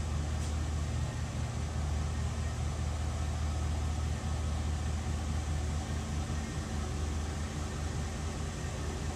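Chevrolet pickup truck's engine idling with a steady low hum as the truck reverses slowly at idle.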